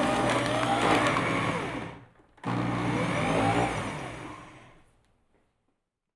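Electric blender motor whirring with a rattling churn, then cutting off about two seconds in. Half a second later a second pulse starts, and it winds down over about a second and a half as the blades spin to a stop.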